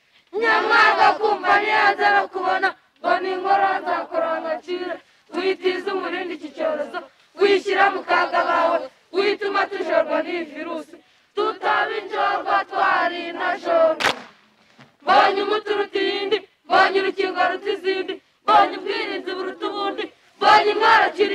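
A group of children chanting together in unison, in short phrases of about two seconds with brief pauses between them.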